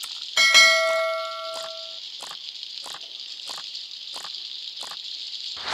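A single bell-like chime sounds about half a second in and rings away over a second or so, over a steady hiss. Soft ticks repeat about every two-thirds of a second, and a short knock comes at the very end.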